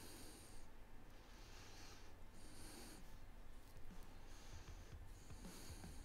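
Quiet breathing close to the microphone: three soft hissing breaths about two to three seconds apart, over a low steady hum.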